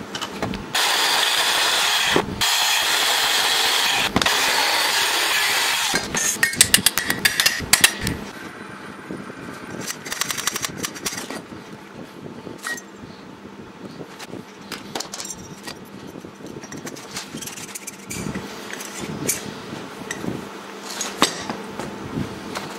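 A power tool grinding metal, a loud steady hiss for about five seconds. It is followed by a quick run of sharp metallic knocks, then quieter scattered clinks and knocks as metal parts are handled on a wooden workbench.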